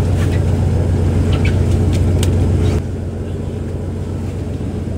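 Fishing trawler's diesel engine running steadily with a low hum, with scattered knocks and clatter on deck over it. A little under three seconds in the sound drops abruptly quieter and the knocks stop, leaving the engine hum alone.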